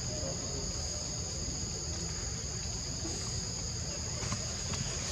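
Steady high-pitched drone of forest insects, two even tones held without a break, over a low rumble.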